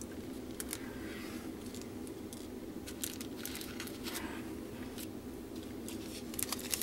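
Small plastic packets of diamond painting drills crinkling irregularly as they are handled, over a steady low hum.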